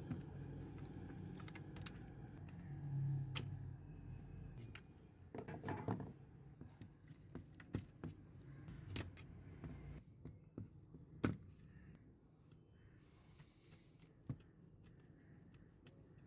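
Scattered light clicks and knocks as hands pull at the wiring and ribbon cable of an old DVD player's metal chassis and handle its parts, with a low rumble in the first few seconds.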